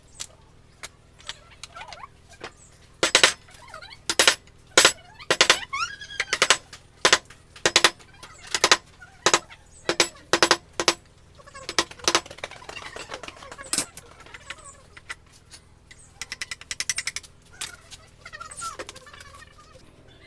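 Wooden mallet tapping a carving chisel into wood in a steady run of sharp knocks, about three every two seconds, then lighter, scattered taps and scraping from about halfway on.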